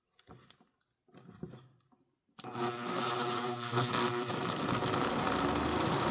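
Handheld rotary tool switched on about two seconds in after a few faint handling clicks, then running steadily as it spins a magnetic reduction gear train of magnet-studded wheels, its pitch climbing slightly near the end as it speeds up.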